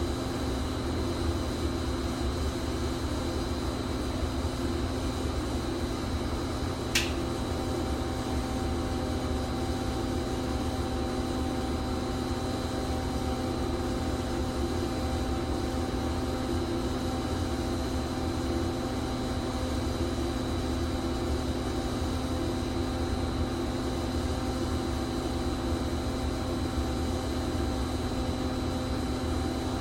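Electric pipe-thawing machine humming steadily while it runs current through a frozen pipe to thaw it. A single sharp click comes about seven seconds in, and a slightly higher tone joins the hum after it.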